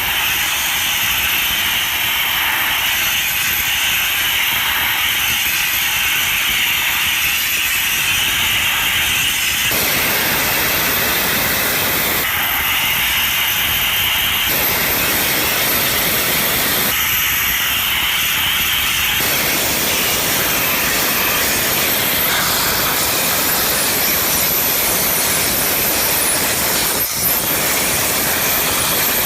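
Loud, steady hissing machine noise from factory work on a marine propeller, its character changing abruptly several times.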